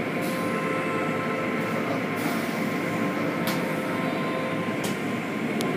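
Automatic car wash spraying water over the car, heard from inside the cabin: a steady rush of water on the glass and body, with a few faint steady tones from the wash equipment and a few brief sharp ticks of spray.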